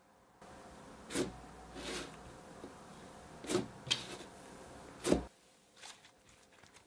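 Slime being handled: about five short squishes or pokes, the loudest a little after five seconds in, then a couple of faint ticks.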